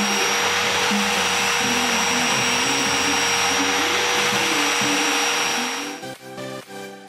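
Angle grinder running with a steady high whine over dense hiss. A tungsten electrode is held against its abrasive disc to grind it to a sharp point. The grinder stops about six seconds in.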